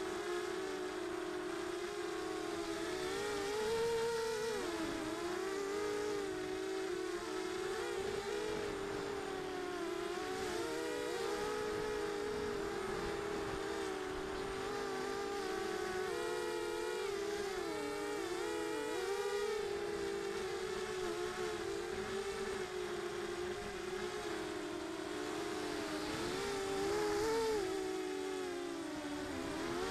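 FPV racing quadcopter's electric motors and propellers whining, heard from a camera on the drone, the pitch wavering up and down constantly with the throttle.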